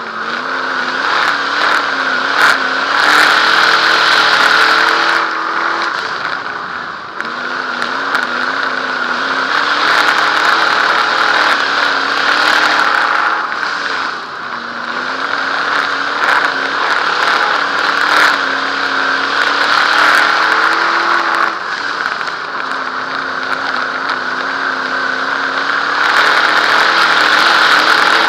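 Dirt modified race car's V8 engine heard from inside the cockpit at race speed. It climbs in pitch along each straight and falls back as the driver lifts for the turns, about every seven to eight seconds.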